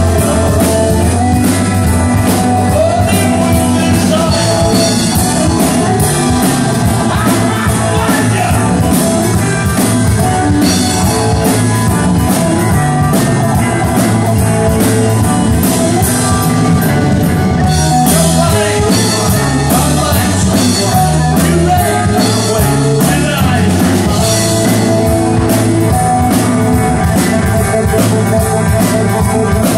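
Live rock band playing loud and steady: electric guitars over a drum kit with cymbals keeping a regular beat.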